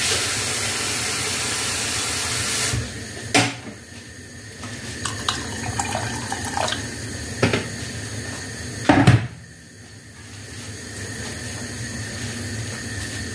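Water running hard from a tap for nearly three seconds, then shut off, followed by a knock. Water is then poured from a jug into a stainless steel pot of tea, and about nine seconds in a loud clunk ends the pour.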